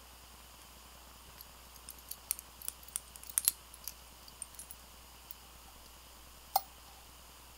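Light metallic clicks and ticks from handling a small balisong (butterfly) knife, its handles and free-floating latch knocking together: a flurry of irregular clicks for a few seconds, then one sharper click near the end.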